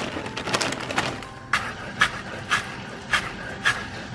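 Chef's knife chopping chives on a wooden cutting board: sharp, even knife strikes, about two a second.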